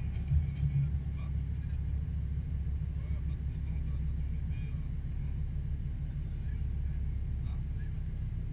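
Car engines idling at a standstill: a steady low rumble, with a few faint high chirps over it.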